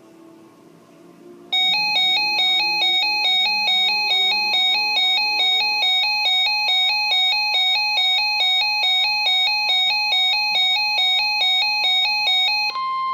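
Weather radio alert alarm beeping in a fast, even pulsing pattern, about three to four beeps a second, for about eleven seconds. Near the end it gives way to a single steady, loud alert tone that signals an incoming warning broadcast.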